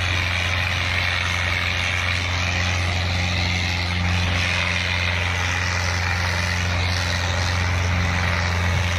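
Fiat 640 tractor's four-cylinder diesel engine running steadily under heavy load as it drags a disc harrow through the soil, a constant low drone that holds the same pitch throughout.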